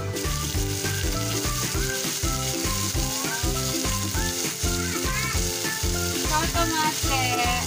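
Sliced onions and garlic sizzling in hot olive oil in a pan as a spatula stirs them, with background music with a steady beat underneath.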